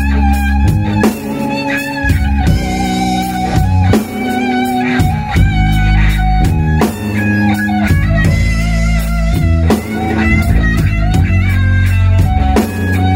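Rock band playing an instrumental passage: a Stratocaster-style electric guitar carries a wavering melodic line over electric bass and a DW drum kit.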